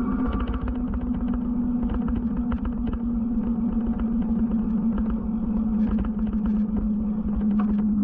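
Riding sound from a camera on a moving e-bike: wind rumbling on the microphone, a steady low hum, and scattered small rattles and clicks.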